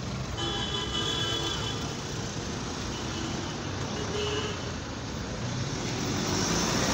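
Steady road traffic noise, with a vehicle horn held for about a second and a half near the start and a shorter toot about four seconds in.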